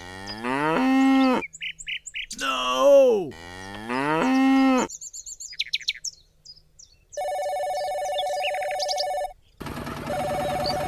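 Three drawn-out cattle moos, each rising and then falling in pitch, followed by quick bird chirps. Then comes a steady electronic ringing tone, sounding twice for about two seconds each.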